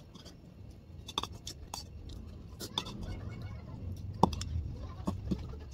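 Eating sounds: chewing over a low rumble, with scattered sharp clicks of a metal spoon on a ceramic bowl, the loudest about four seconds in.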